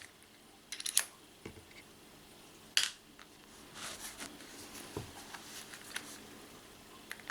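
A few sharp clicks and light taps of a screwdriver and small parts being handled while the top screw of an Umarex TPX50 pistol is worked loose. A small cluster of clicks comes about a second in, a single sharp click near three seconds, and fainter ticks after that.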